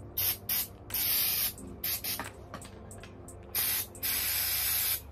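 Aerosol spray can sprayed into an AR-15's barrel in about five hissing bursts: short ones at the start and about three and a half seconds in, a longer one of about half a second around a second in, and the longest, about a second, near the end.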